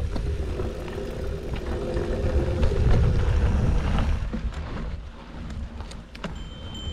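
Wind buffeting the microphone over the rumble of a mountain bike's tyres rolling on a dirt trail, louder for the first few seconds. In the second half the bike rattles and clicks over bumps.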